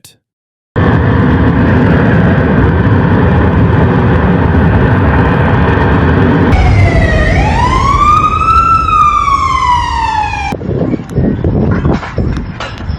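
A loud, steady rushing noise, with an emergency vehicle siren wailing over it for about four seconds: the siren dips, rises, then slowly falls. The sound cuts off abruptly, leaving quieter knocks and clatter.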